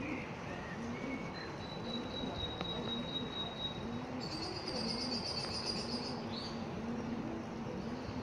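Birds calling over a steady background hiss: a low call repeating about every half second throughout, a thin high whistle early on, and a fast high trill about halfway through.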